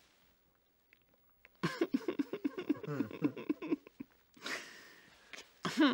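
A man breaking into laughter about a second and a half in: a quick run of stifled laughs lasting about two seconds, then a breathy exhale and another short laugh near the end.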